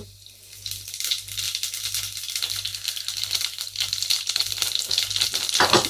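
Mustard and cumin seeds frying in hot oil in a saucepan: a dense, rapid sizzle and crackle that starts about half a second in and keeps going, the seeds popping as they hit oil a little hotter than usual.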